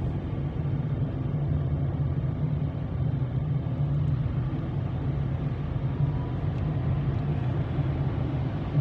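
A car's engine and road noise heard from inside the cabin while driving in street traffic: a steady low hum.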